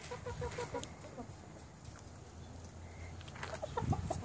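Hens clucking: a quick run of about five short clucks in the first second, then only soft background. A few knocks come near the end.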